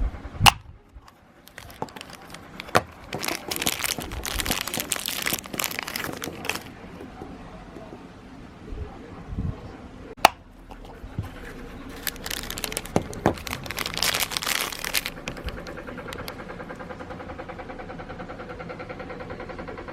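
Plastic gashapon capsules clicked open and plastic wrappers crinkled and torn: sharp snaps with bursts of rustling. About three-quarters of the way in, a steady rhythmic hum takes over.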